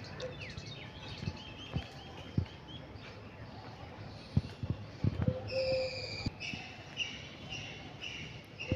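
Birds calling: repeated quick high chirps, with a short low cooing note just past halfway, over a few soft thuds of footsteps.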